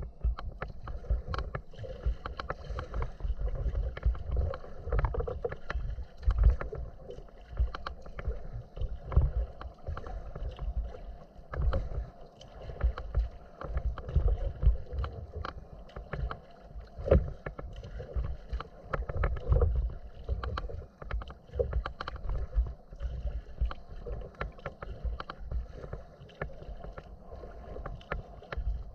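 Choppy bay water lapping and splashing against a kayak's hull, with many small irregular splashes and ticks over uneven gusts of low rumble.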